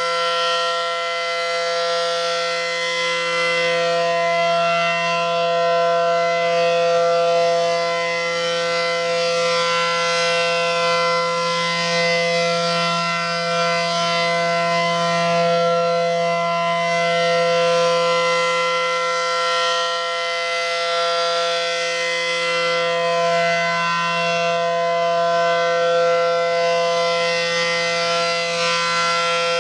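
Refurbished ACA Allertor outdoor warning siren sounding a loud, steady chord of tones with no rise or fall in pitch. Its loudness swells and fades gently every few seconds.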